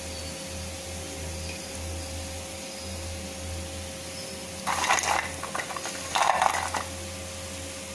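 Crisp deep-fried pakoda tipped from a wire-mesh spider strainer onto a plate, rattling and scraping in two short bursts about five and six seconds in, over a steady low hum.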